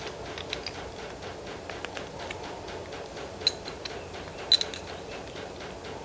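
Light clicks and clinks of metal tools and parts being handled while a scuba regulator's piston first stage is taken apart, with two sharper metallic clinks about three and a half and four and a half seconds in.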